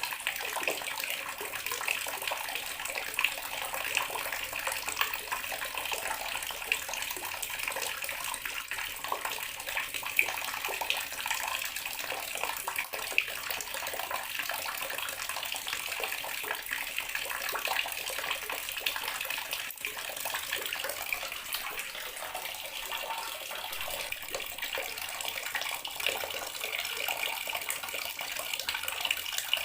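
Bathroom water tap running steadily, its stream splashing into the basin with a continuous hiss flecked with small irregular splashes.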